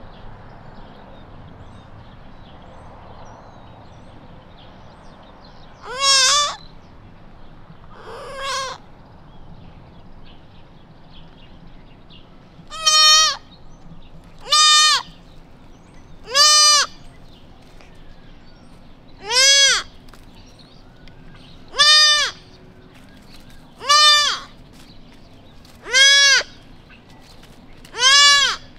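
Newborn whitetail fawn bleating for its mother: short, high calls, each rising and then falling in pitch. Two softer calls come about six and eight seconds in, then a steady series of louder ones about every two seconds.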